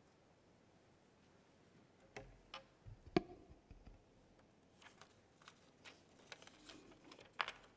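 Faint room tone with scattered small clicks and knocks, the loudest about three seconds in and another near the end.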